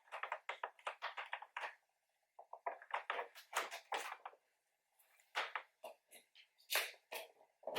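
Handling noise: a run of light clicks, taps and rustles, with a couple of short pauses, as the power cord of a small portable mini fridge cooler is plugged in and the unit is handled.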